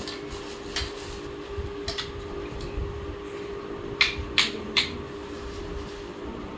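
Kitchen dishes and utensils clinking: a few light knocks, then three sharp clinks in quick succession about four seconds in, over a steady low hum.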